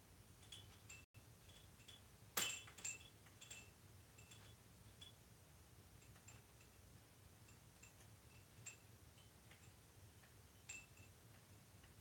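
Faint tinkling of the bell inside a Lilliputians Vicky Mini Rattle, a small plush cow rattle, as an African grey parrot handles it with beak and foot: scattered soft jingles, the loudest about two seconds in and another near the end.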